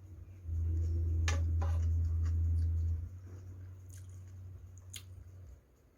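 Close-up chewing and squishy mouth sounds of a person eating, with a few short smacks. A steady low hum underneath swells loud from about half a second in to about three seconds in, then drops back and fades near the end.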